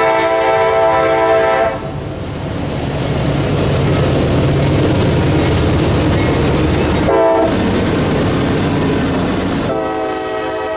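CSX GE AC44CW freight locomotive's air horn sounding a long blast that cuts off about two seconds in, followed by the rumble of the diesel locomotive and its wheels as it passes close. A short horn blast comes about seven seconds in, and the horn sounds again near the end as the autorack cars roll by.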